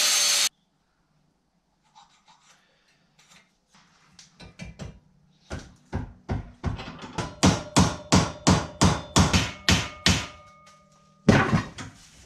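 An angle grinder on steel cuts off about half a second in. After a pause, a hammer strikes a steel bracket clamped in a bench vise, a run of about fifteen ringing metal blows that come faster as they go, followed by a short harsh burst near the end.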